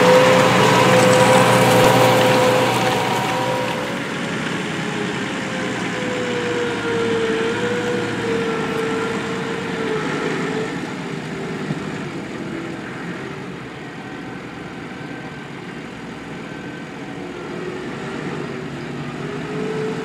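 New Holland T7.270 tractor's six-cylinder diesel engine running steadily under load while pulling a reversible plough. It is loudest for the first few seconds, then carries on quieter with a slightly wavering pitch.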